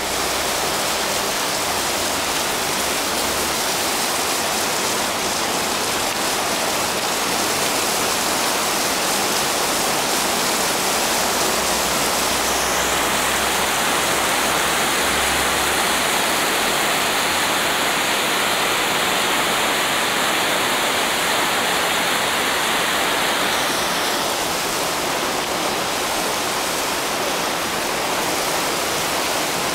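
Heavy downpour: dense rain pouring down in a steady hiss.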